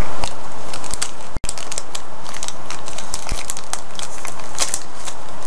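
Plastic granola bar wrapper crinkling and crackling in the hands, in many quick irregular crackles, with a momentary break about a second and a half in.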